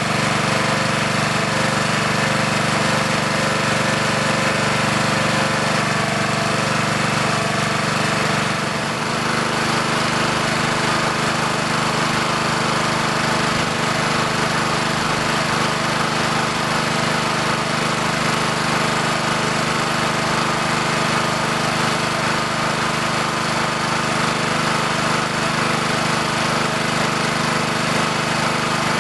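Honda GX200 single-cylinder engine on a Simpson pressure washer running steadily, its note changing slightly about nine seconds in. It sounds like a solid engine, though the washer's water pump is putting out no pressure.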